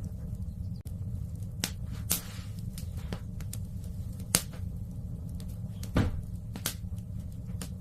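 Wood fire in a fireplace crackling: irregular sharp pops over a steady low rumble, the loudest pops about four and six seconds in, and one pop about two seconds in followed by a brief hiss.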